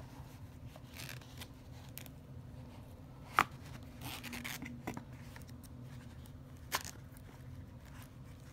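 Rustling and handling of a small quilted leather zip wallet and its box, cloth dust bag and paper packaging, with two sharp clicks: a loud one about three and a half seconds in and a softer one near seven seconds.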